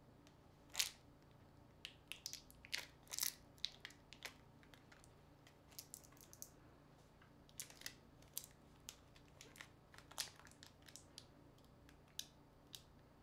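Irregular crackles and small clicks of fingers working at a smartphone's plastic battery pull tabs and the parts around them, the sharpest click about a second in, over a faint steady hum.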